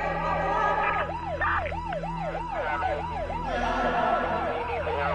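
Emergency vehicle siren on a fast yelp, its pitch sweeping quickly up and down about two to three times a second, over a steady low hum.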